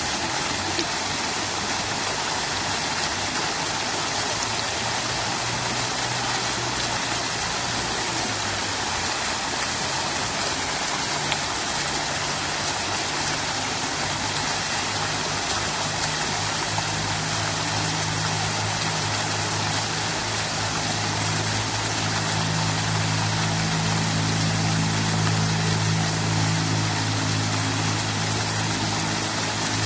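Water from a fountain splashing and pouring steadily. A low hum rises under it from about a quarter of the way in and is loudest in the second half.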